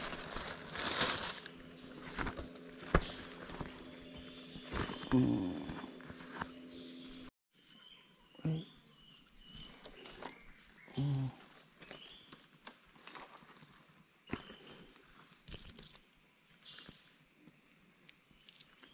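Steady, high-pitched insect chorus, with scattered knocks and handling noises over it. The sound cuts out for a moment about seven seconds in, then the chorus carries on.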